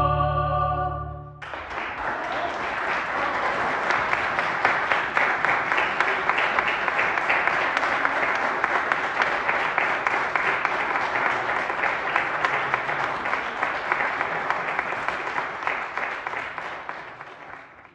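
Several singers hold a final chord that stops about a second and a half in, and audience applause follows at once, dying away near the end.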